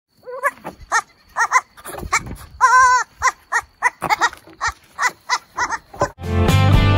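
Nigerian Dwarf goat kids bleating in a quick series of short, high calls, with one longer wavering bleat about three seconds in. Music with guitar starts loudly near the end.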